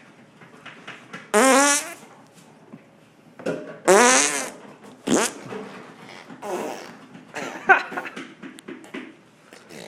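A baby blowing raspberries, buzzing her lips while voicing to make fart noises: two long, loud wavering buzzes about one and a half and four seconds in, then several shorter, softer ones.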